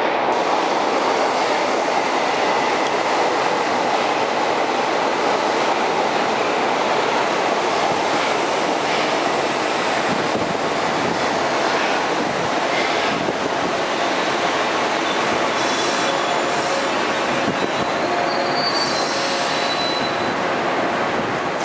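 São Paulo Metro Fleet D train D45 running along the station platform: a loud, steady rolling of wheels on rail, with thin high wheel squeals joining in over the last several seconds.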